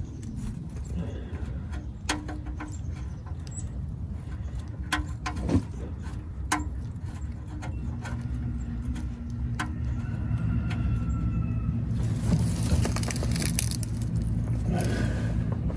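Scattered sharp metallic clinks of hand tools and parts while refitting the oil drain plug on a van, over a steady low hum.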